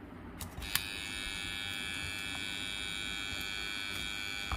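A multimeter's continuity buzzer gives a steady high tone, starting about a second in just after a click of the test probe touching a relay-base screw terminal. The tone shows continuity through the relay contact being probed.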